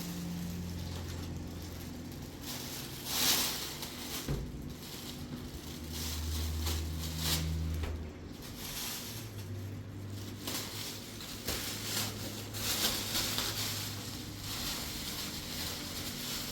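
An engine running with a steady low hum that shifts in pitch a few times, with several brief rough scraping noises over it.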